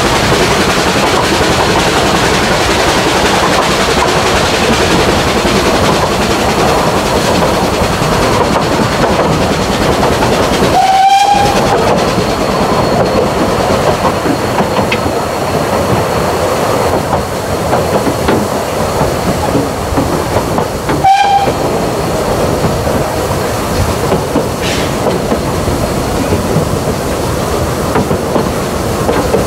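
Narrow-gauge steam train's carriages running along the track, a steady rumble and clatter of wheels on the rails heard from aboard an open carriage. Two short whistle toots cut through, about ten seconds apart.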